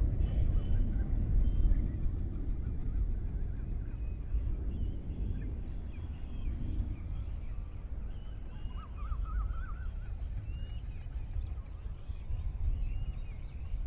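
Outdoor ambience under storm clouds: a low rumble, loudest in the first couple of seconds and then easing off, with scattered bird calls over it. A short rapid run of calls comes about nine seconds in.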